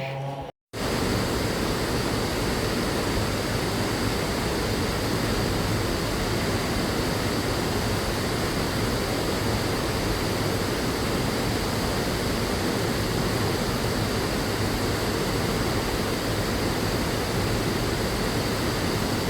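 Waterfall, a steady rush of falling water that starts abruptly just under a second in and holds even throughout.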